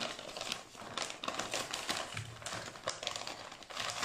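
Clear plastic bag crinkling and rustling as it is handled, with small metal parts inside clicking against each other.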